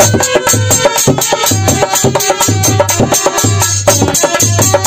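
Instrumental passage of Indian folk devotional music: a dholak drum plays a steady fast beat, with deep strokes about twice a second, under held notes from a melody instrument.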